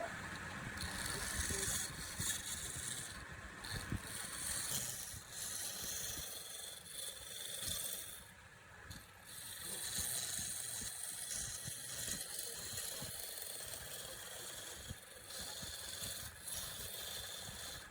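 Turning tool cutting wood on a lathe: a continuous hissing scrape with uneven knocking underneath, breaking off briefly a few times as the tool is lifted.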